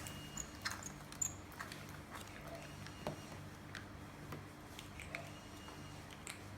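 Scattered small clicks and taps of plastic being handled as a bottle of slime activator is squeezed out into a slime kit's container, over a faint low hum.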